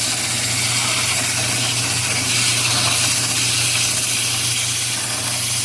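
Wood lathe running with a steady motor hum, while extra-coarse sandpaper held against the spinning wood makes a constant hiss as it takes off a lot of material.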